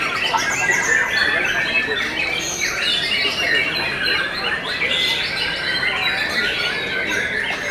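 Several caged white-rumped shamas (murai batu) singing at once in competition: a dense, unbroken tangle of overlapping whistled and warbled phrases.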